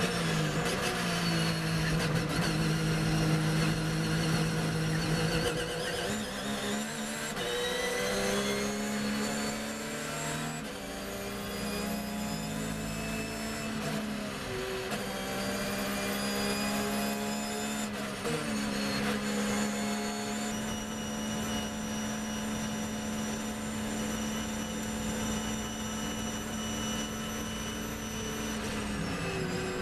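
Porsche 911 GT3 R race car's flat-six engine heard from inside the cockpit, accelerating hard through the gears: the pitch climbs and drops sharply at each of several upshifts, then holds high revs flat out on a long straight before falling near the end.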